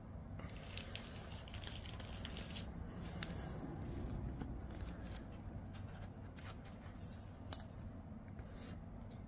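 Faint handling of a trading card between the fingers: light rustling and small clicks, with one sharper click about seven and a half seconds in.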